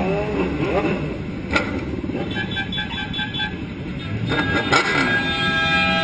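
Motorcycle engines running in a group on a city street, with a vehicle horn sounding in a quick string of short beeps about two seconds in, then a long continuous horn blast from about five seconds in.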